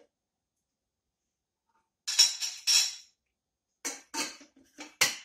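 Metal kitchenware clinking and rattling as a stainless-steel kettle and its lid are handled beside a serving bowl: two louder rattles about two seconds in, then several shorter clinks near the end.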